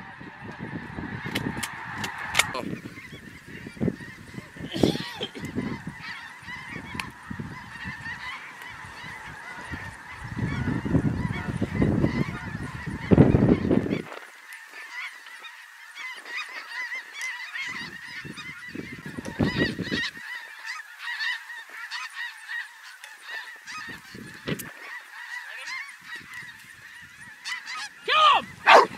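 A large flock of snow geese honking continuously, a dense chorus of overlapping calls. Gusts of wind buffet the microphone, heaviest through roughly the first half and again briefly later on.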